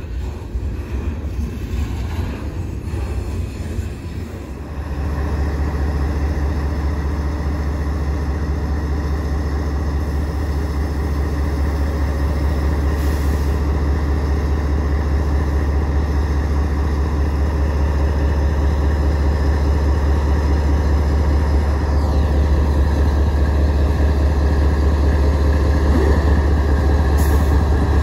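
Train on the rails: a few seconds of irregular clattering noise, then about five seconds in a loud, steady, low drone of a diesel locomotive engine running close by.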